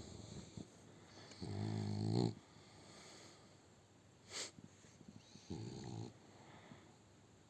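A sleeping dog snoring: a long, loud snore about a second and a half in and a second, softer one about five and a half seconds in. A brief sharp noise comes about four seconds in, between them.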